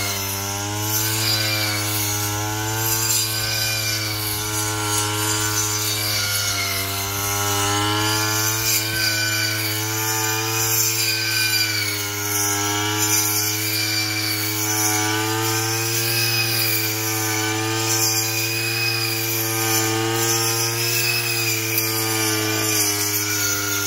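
Petrol brush cutter fitted with a 12-inch circular blade, its small engine running steadily at high speed while cutting grass, the pitch dipping and recovering slightly.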